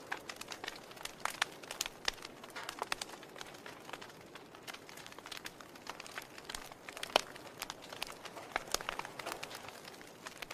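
Wood fire in a fireplace crackling: burning logs give irregular sharp pops and snaps over a soft hiss of flame. The loudest pop comes about seven seconds in.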